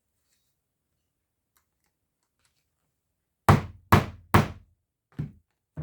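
Hammer striking a popper setting tool to close a prong snap fastener through fabric: three hard blows in quick succession, then two lighter taps near the end. The blows bend the prongs over to set the fastener.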